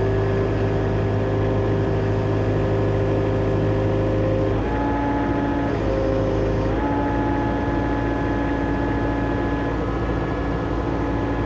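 John Deere excavator's diesel engine running steadily under working load, with a hydraulic hum whose pitch steps to a new level about four and a half seconds in and again near seven seconds as the controls are worked.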